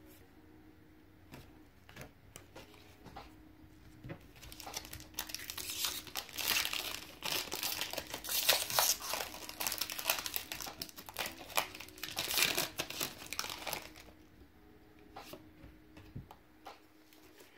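A Pokémon card booster pack's foil wrapper being torn open and crinkled. Light clicks of cards being handled come first, then a long stretch of dense crinkling that is loudest in the middle and stops a few seconds before the end.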